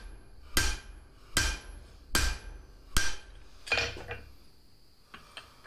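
Hammer blows on hot leaf spring steel at the anvil, five ringing strikes about 0.8 s apart, the last one weaker. Then two light taps near the end.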